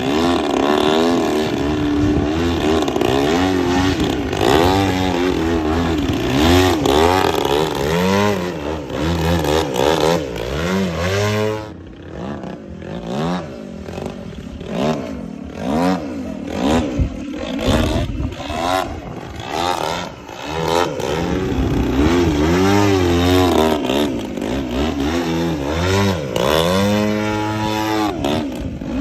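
Radio-controlled aerobatic model airplane flying 3D manoeuvres, its motor and propeller rising and falling in pitch again and again. It turns quieter for a few seconds near the middle, then loud again.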